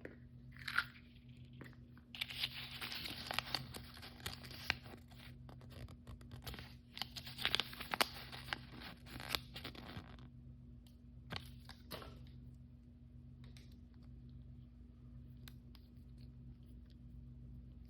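Blind-bag toy packaging being torn open by hand: two stretches of tearing and crinkling, each a few seconds long, followed by a few sharp clicks and quieter handling.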